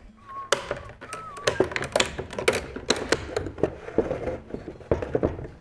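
Irwin one-handed bar clamps being released and lifted off a glued wooden lamination: a quick, irregular run of plastic clicks, clacks and knocks as the clamps are unlatched and handled.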